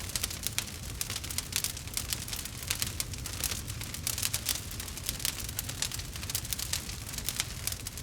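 Wood fire burning in a fireplace, with dense, irregular crackles and pops over a low rumble of the flames.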